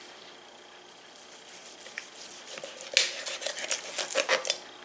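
Chef's knife carving the breast of a smoked whole chicken on a wooden cutting board: after a quiet start, a run of sharp crackly clicks and crunches from about three seconds in as the blade cuts through the crisp skin and meat.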